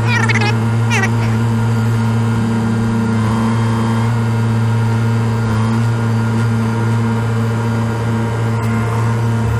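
JCB telehandler's diesel engine running steadily, heard from inside the cab while it carries a shipping container on its forks. Two short high-pitched chirps come about a second apart near the start.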